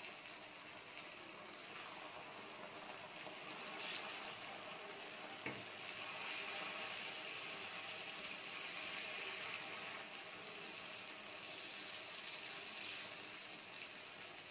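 Unniappam batter balls deep-frying in coconut oil in the wells of an appam pan, with a steady sizzle. A couple of light clicks sound partway through.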